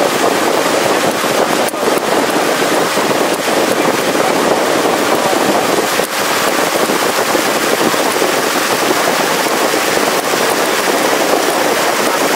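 Steady rush of wind on the microphone and water noise from a river longboat under way, with a crackly texture. The noise dips briefly about two seconds and six seconds in.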